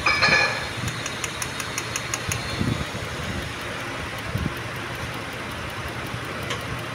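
Car engine idling steadily under the open hood, with a fast, light, regular ticking over it. There is a brief louder sound right at the start.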